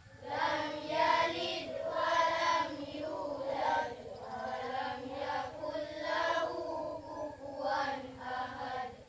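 A group of children singing together in unison, in held notes with short breaks between phrases.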